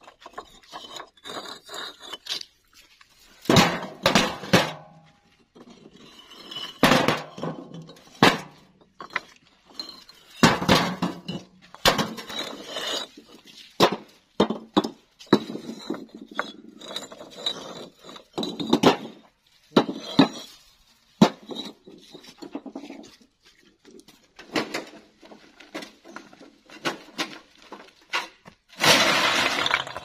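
Hollow fired clay bricks clinking and knocking against one another as they are lifted off a stack and set down, in irregular sharp knocks. Near the end, a longer clatter of about a second as a wheelbarrow load of bricks is tipped out onto the ground.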